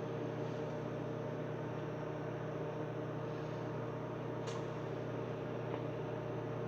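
Microwave oven running with a steady hum while it cooks eggs.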